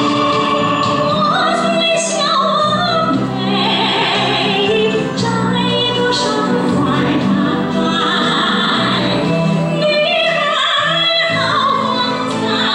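A woman singing a Chinese song in a trained, operatic style into a handheld microphone, over instrumental accompaniment. She holds long notes with vibrato.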